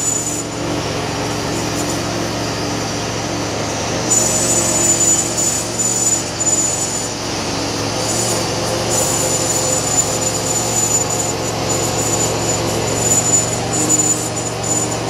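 Homemade bandsaw mill running steadily, its band blade sawing lengthwise through a huge spruce log, with a high thin whine that comes and goes.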